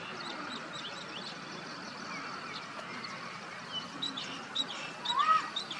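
Small birds chirping with many short high notes over a steady outdoor background hiss. Just after five seconds in comes a louder, short arched cry.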